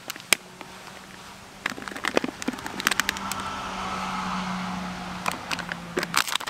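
Light clicks and rustles of hands scattering diced ham onto a pizza base, with a steady hum underneath that swells and fades over a few seconds in the middle.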